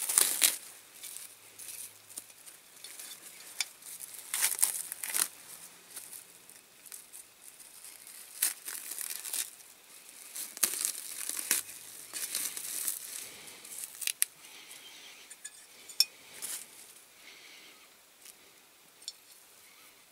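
Cling film and masking tape being peeled off a freshly painted diecast toy model and crumpled, in irregular crinkling and tearing rustles. The loudest is right at the start.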